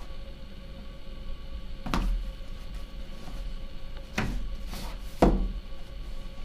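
Cardboard shipping box being worked open by hand: three or four short scraping rasps, spaced a second or two apart, over a faint steady hum.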